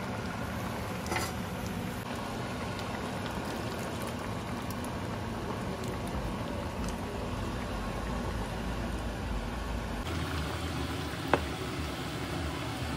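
Chopped pork simmering and sizzling in its liquid in a wok, a steady bubbling, while a wooden spatula stirs it. There is a single sharp knock about eleven seconds in.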